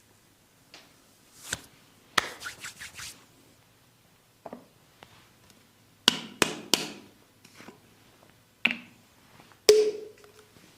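Sharp slaps and cracks from a barber's hands-on head and neck massage: single loud strikes and quick runs of several strikes in a row, in irregular groups.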